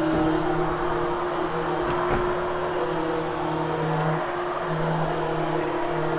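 Vacuum cleaner running steadily over freshly cleaned carpet, grooming and setting the lifted pile and pulling out remaining dust. Its motor makes a constant hum under a broad rushing hiss.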